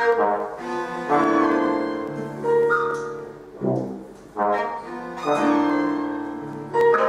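Instrumental music with brass and piano, played in short phrases with sustained notes.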